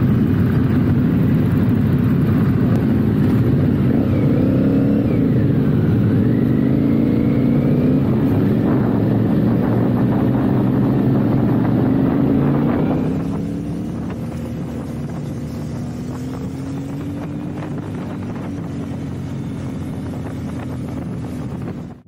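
Motorcycle engine running on the move, a steady, loud drone. About halfway through it drops quieter, and its note then rises slowly.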